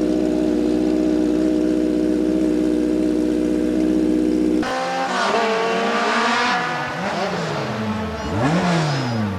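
Racing sports-prototype engine running at a steady, unchanging pitch. About halfway through, it gives way abruptly to engine revving, the pitch sweeping up and down repeatedly.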